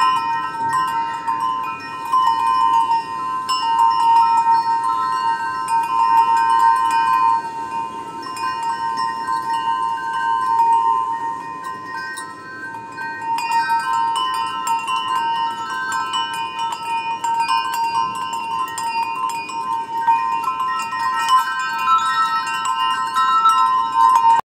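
Background music of ringing, chime-like tones held over a steady sustained note.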